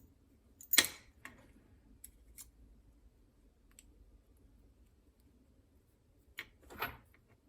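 Small metal clicks and clatters from a J1J2 curved-key dimple lock being handled during disassembly, with a sharp clack about a second in and another cluster of clicks near the end.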